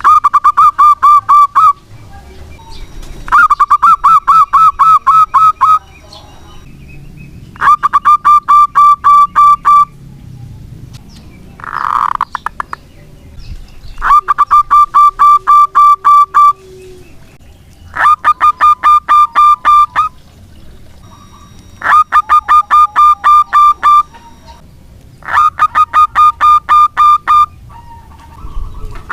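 Zebra dove (local perkutut) cooing loudly in repeated phrases of rapid staccato notes, each phrase about two seconds long, seven phrases at roughly four-second gaps. A shorter, different call sounds once about midway.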